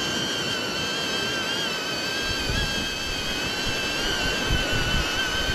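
HoverAir X1 drone's propellers whining steadily in flight overhead, the pitch wavering slightly. Wind buffets the microphone from a couple of seconds in.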